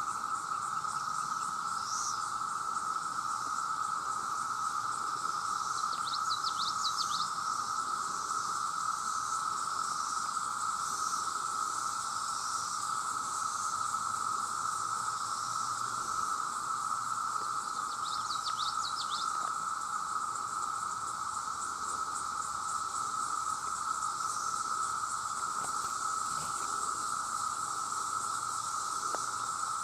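Massed cicadas calling together, one steady unbroken drone, with a bird's short chirping call twice.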